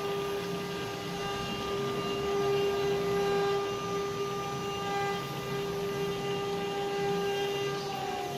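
CNC stone carving machine running: a steady motor whine over a rough noisy haze. Near the end the whine starts to drop in pitch.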